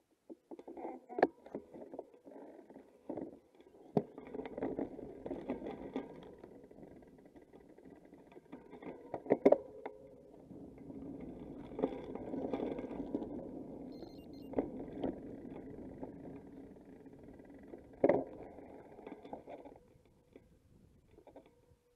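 Rumbling noise from a bicycle on the move, broken by several sharp knocks, the loudest about halfway through and again near the end. It eases off just before the end.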